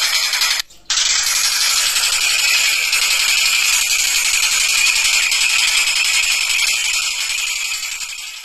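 Tengkek buto kingfisher giving a dense, continuous rattling chatter, broken by a brief gap a little over half a second in.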